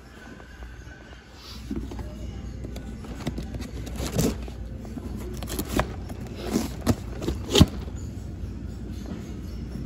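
Cardboard cases being shifted and handled in a metal shopping cart: a scattering of knocks, bumps and scrapes, the loudest near the end, over a steady low hum.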